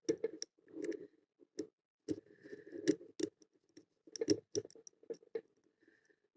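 Lock pick clicking and scraping on the pins inside a brass five-pin padlock, in irregular small clicks, under heavy tension that is needed to overcome the stiff actuator spring. The loudest clicks come about three and four seconds in.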